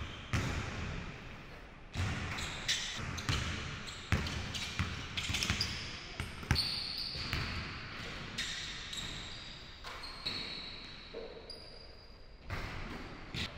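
A basketball being dribbled on a hardwood gym floor: irregular bounces that echo in the hall, with a few short high sneaker squeaks.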